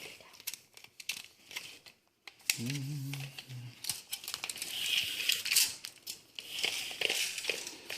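Crinkling, rustling and scattered light clicks as an HDMI cable is handled.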